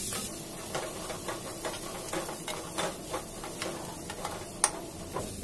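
Wooden spatula stirring fenugreek greens and peas around a pressure cooker pan: a run of irregular scrapes and light knocks against the pan, with one sharper knock near the end.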